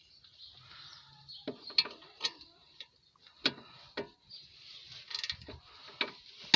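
Small ratchet with a 7 mm Allen bit clicking as it is worked back and forth, loosening the lower brake caliper guide bolt: about nine separate sharp clicks, roughly half a second apart, starting about a second and a half in.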